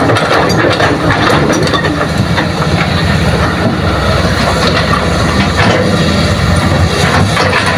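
Heavy diesel engine of an excavator loading a dump truck, running steadily under load, with repeated metallic rattling and clatter throughout.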